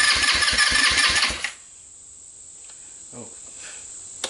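GY6 150cc four-stroke single-cylinder ATV engine cranked over by its electric starter, pulsing about seven times a second with a starter whine, then cut off abruptly about a second and a half in without catching. A faint click near the end.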